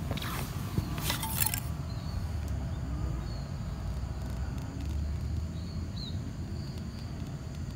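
Low background rumble with a cluster of clicks and rustles in the first two seconds, then a few faint, short high chirps.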